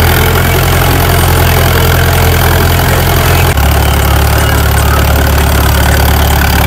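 Tractor diesel engine running loud and steady while puddling a flooded paddy field, heard from the driver's seat. Its low note shifts about halfway through.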